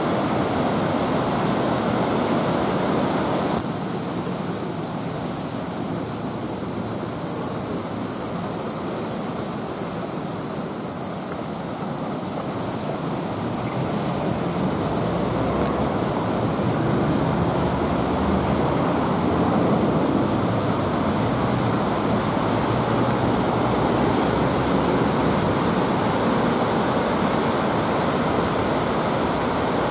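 Steady rush of the Kamo River in flood, its muddy floodwater churning into whitewater after a heavy downpour. About four seconds in the rush abruptly turns brighter and hissier.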